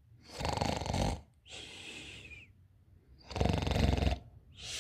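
A person snoring: two loud, rattling snores on the breath in, each followed by a softer breath out.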